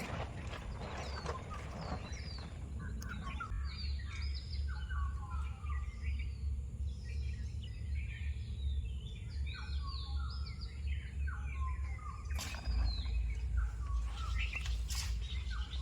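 Many small birds chirping and twittering, a dense chorus of short falling notes that thins out after about twelve seconds. A steady low rumble runs underneath, with two sharp knocks near the end.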